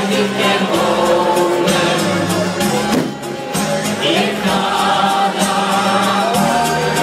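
Crowd of football supporters singing a song together in chorus over music.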